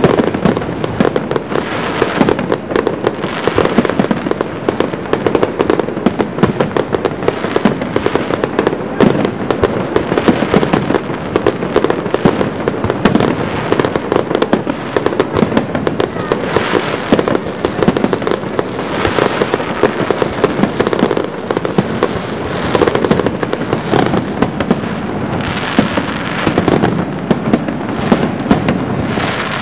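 Aerial fireworks display: a dense, continuous barrage of bangs and crackling bursts with no let-up.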